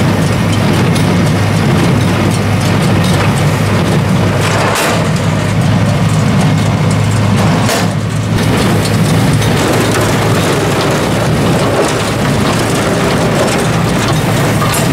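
A John Deere 3020 tractor running a John Deere 336 square baler: a steady, loud engine drone with the baler's mechanism clattering, and two sharper knocks, about five and eight seconds in.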